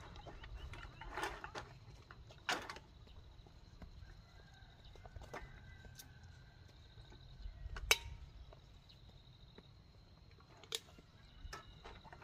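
A few scattered light knocks and clicks, the sharpest about eight seconds in, over a faint steady high-pitched tone.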